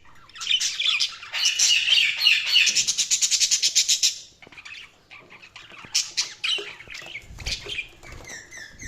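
Budgerigars chirping and chattering. A dense burst of warbling chatter ends in a fast run of repeated notes, then breaks off about halfway through. Scattered, softer chirps follow.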